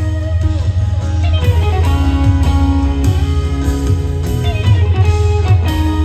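Live rock band music led by a twelve-string electric guitar playing held, ringing notes over a heavy, steady low end.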